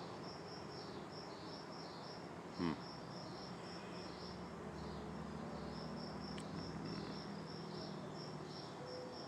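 Crickets chirping in a steady high rhythm, about four chirps a second. Under them the low drone of a distant aircraft engine swells through the middle and fades again.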